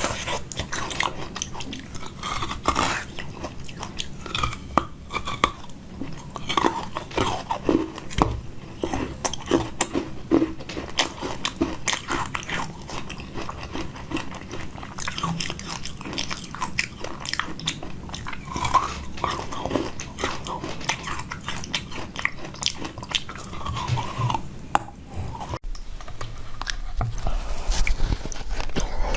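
A person eating close to the microphone: repeated bites and chewing of jelly and frozen sweets, many short sharp mouth and food noises in an uneven rhythm.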